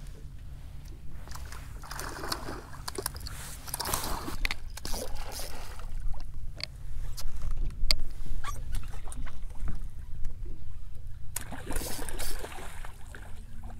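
Water sloshing and splashing around a small boat as a hooked redfish is fought at the surface, over a steady low rumble, with scattered sharp clicks and several short bursts of splashing.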